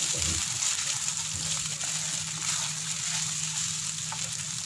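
Noodles and vegetables sizzling in a frying pan while a wooden spatula stirs and tosses them, with faint scrapes and a steady low hum underneath.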